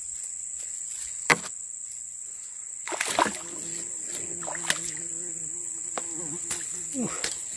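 Insects droning steadily at a high pitch over a swamp. There is a sharp click about a second in, then splashes and knocks from about three seconds on, with a low wavering hum in the middle.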